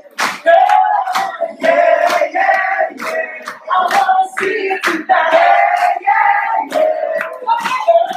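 A group of voices singing a song, with hand clapping.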